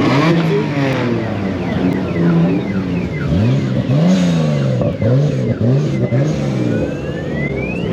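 A car engine revved again and again, its pitch climbing and dropping in quick repeated blips. Near the end a high whine rises steadily in pitch.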